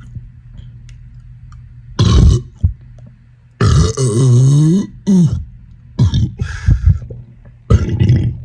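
A man burping loudly, over and over: a short burp about two seconds in, then a long, deep burp whose pitch drops and then rises again, then a run of about four shorter burps.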